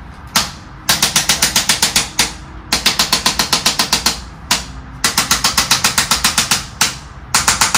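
Handheld chiropractic percussion instrument clicking rapidly against the back, about eleven clicks a second, in five runs of one to two seconds with short pauses between.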